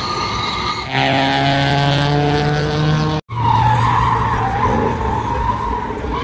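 Car engine held at high revs with tyres squealing and skidding, as in a drift or burnout. The sound grows louder about a second in, cuts out abruptly a little past halfway, then comes back as a wavering tyre squeal over the engine.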